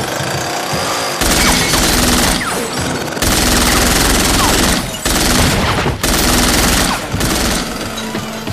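Long bursts of automatic gunfire, several seconds each, with short breaks between them, over a film score.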